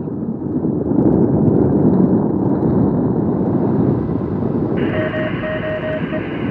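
Wind rushing over the microphone of a weather-balloon payload camera as it falls under its parachute. About five seconds in, a rapid beeping joins it, about four beeps a second.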